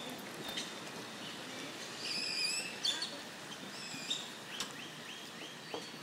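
Birds calling over a steady background hiss: a clear whistled note about two seconds in, another a second later, and a quick run of about five short repeated chirps near the end.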